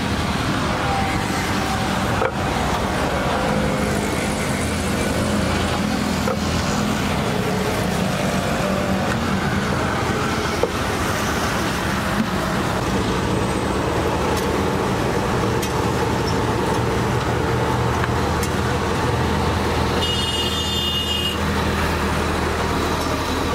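Steady roadside traffic noise, a continuous rumble of passing vehicles, with a few sharp clicks.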